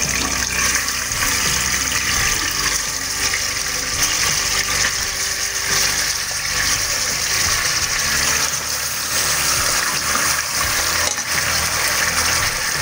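Freshly washed raw mutton pieces sizzling in hot oil in an aluminium pressure cooker as they are tipped in and stirred: a steady, dense frying hiss.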